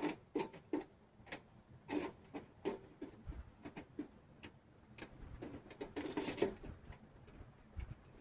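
Irregular light clicks and taps from camp gear being handled, with a short rustle about six seconds in.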